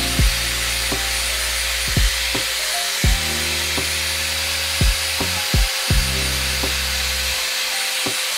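Jazz lofi hip-hop background music: held bass notes that change every second or two under a kick drum on the beat, with a steady hiss throughout.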